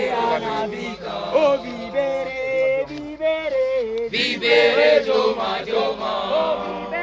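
A group of voices singing a song together, in sustained sung phrases.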